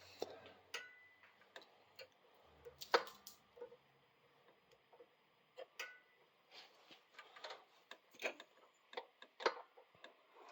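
Irregular light clicks and taps of a hand tool and metal hardware as a nut is tightened down to clamp the brake cable on a mini bike's brake caliper, the sharpest click about three seconds in.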